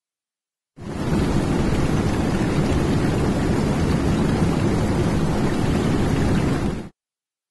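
A steady, dense rushing noise, like heavy rain or rushing water, that swells in about a second in and cuts off abruptly near the end, with dead silence before and after it.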